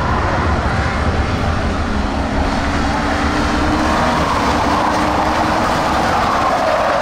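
A field of Ford Crown Victoria stock cars racing on a dirt oval, their V8 engines running hard at speed. The engine notes rise and fall as cars pass close by, with a falling pitch near the end as the nearest car goes past.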